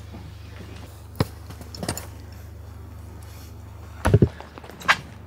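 A few sharp knocks and thumps, the loudest a quick double thump about four seconds in, over a steady low hum.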